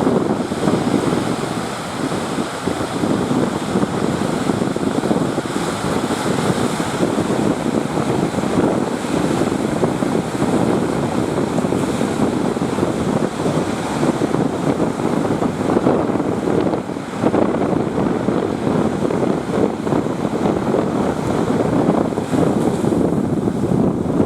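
Strong wind blowing across the microphone, with surf breaking at the sea channel mouth; a dense, steady noise that rises and falls.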